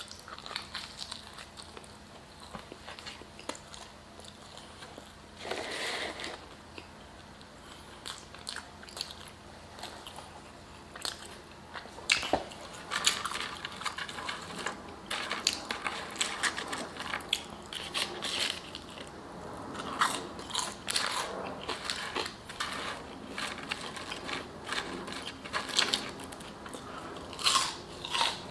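A person chewing and biting food close to the microphone: irregular wet mouth clicks and bites, busier in the second half.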